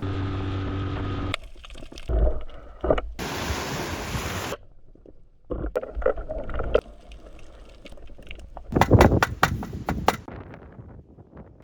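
A quick run of sea sounds that change abruptly: a steady hum for the first second or so, then rushing water and wind noise, with bursts of knocks and splashes.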